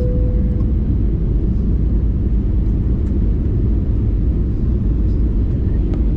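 Steady cabin rumble of an Airbus A321ceo on approach, from the engines and the air rushing past the fuselage, with a short tone right at the start.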